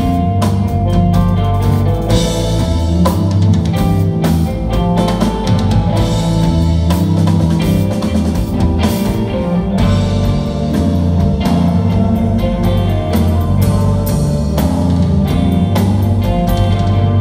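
Live rock band playing loud: electric guitars, bass guitar and drum kit, with frequent drum hits over sustained low bass notes.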